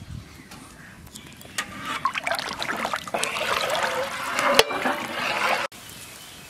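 Water at a rolling boil in a large metal kadai, stirred with a ladle: bubbling and sloshing with scattered clicks, growing louder about a second and a half in and cutting off suddenly near the end.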